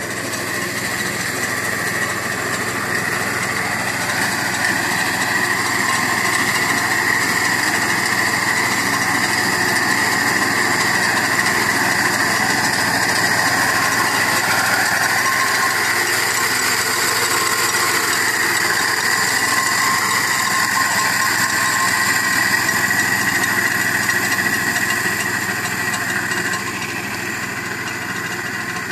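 Small engine of a walk-behind wheat reaper running steadily under load as its cutter bar mows standing wheat, with a steady high-pitched whine. It grows louder over the first few seconds and drops a little near the end as the machine moves away.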